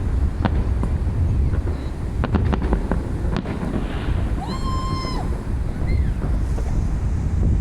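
Fireworks going off in a series of sharp bangs and cracks over a heavy rumble of wind on the microphone, with a high, held whistle about halfway through.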